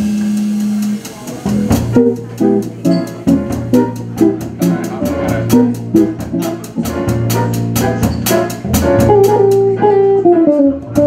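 Small jazz group playing live: archtop electric guitar over double bass and drums. A low chord rings at the start. About a second in, the band breaks into a quick, rhythmic passage of short plucked notes punctuated by drum and cymbal hits.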